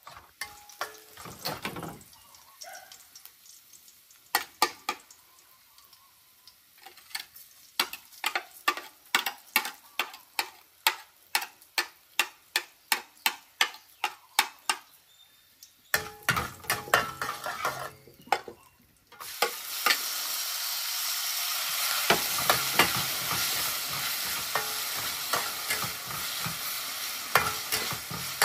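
Metal spatula scraping and tapping against a metal wok in quick, regular strokes while stir-frying. About nineteen seconds in, a loud steady sizzle starts as meat goes into the hot oil, and the spatula strokes go on over it.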